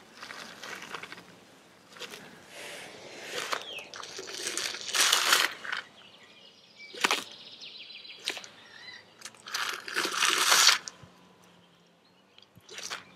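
White-throated monitor lizard crunching through the shell of a thawed lobster tail in its jaws: irregular bouts of cracking and crackling with a few sharp snaps. The longest, loudest crunching comes about five seconds in and again about ten seconds in.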